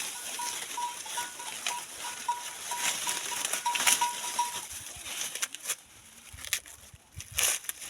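Dry maize plants rustling, with leaves and husks crackling and snapping, as cobs are picked by hand. Over the first half a short high note repeats about two to three times a second.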